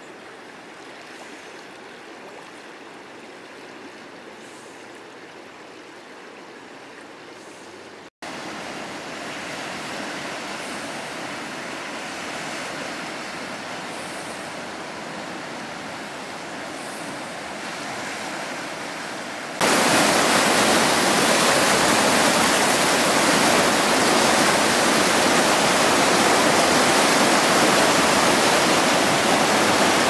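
Rushing floodwater of a river swollen with spring snowmelt: a steady noise of fast-flowing water. It breaks off for an instant about eight seconds in and comes back louder, then jumps much louder about twenty seconds in to the heavy rush of churning whitewater.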